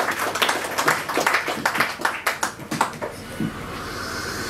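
A small audience clapping, the dense irregular claps dying away about three seconds in and giving way to a steady hiss.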